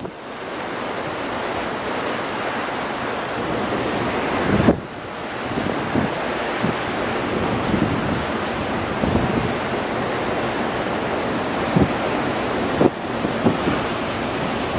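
Wind buffeting the microphone over the steady rush of a ferry's churning wake along the hull, with a brief dip about five seconds in.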